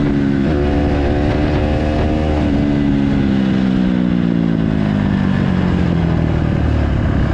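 Motorcycle engine revving up about half a second in, holding, then falling slowly in pitch over several seconds as the bike rides off.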